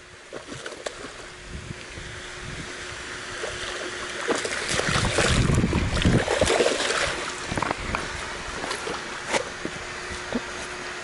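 Hooked bass splashing and thrashing at the water's surface as it is drawn in to the bank, loudest about four to seven seconds in, over a steady rushing hiss.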